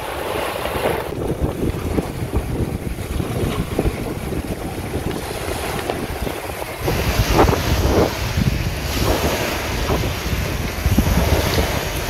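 Small wind-driven waves breaking and washing over a pebble shore, with strong wind buffeting the microphone. The wash swells in repeated surges and gets louder about seven seconds in.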